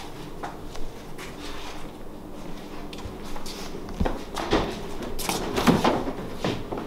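Footsteps and light knocks, then a refrigerator door pulled open near the end, the loudest sound.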